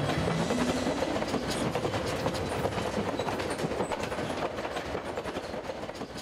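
Train wheels clattering over the rails, a dense, irregular clickety-clack that gradually fades.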